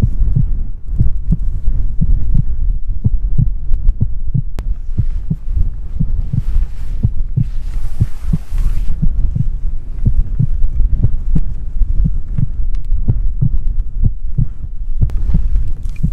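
Heartbeat sound effect: fast, steady low thuds, about two or three a second, in a tense stalking scene. A short hiss passes over it about halfway through.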